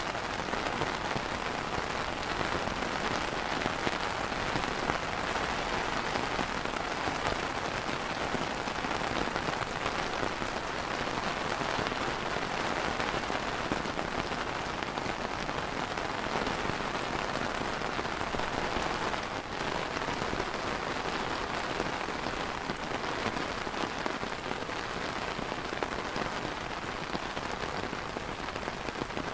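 Light rain falling steadily on an umbrella canopy: a dense, even hiss of many small drops that neither builds nor fades.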